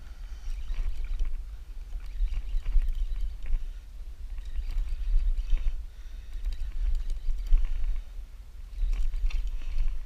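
Wind and water noise aboard a boat at sea: an uneven, gusting low rumble with splashing and hiss above it.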